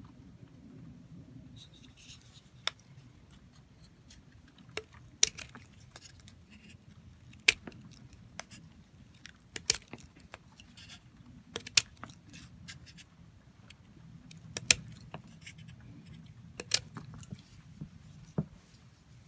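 Hitachi Musashi electrician's knife slicing pieces off a hollow green plant stem, giving a sharp snap with each cut, about one every two seconds.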